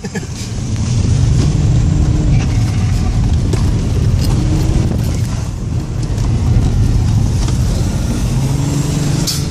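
Audi A6 2.5 TDI quattro's turbocharged V6 diesel engine running under load, its revs rising and easing several times.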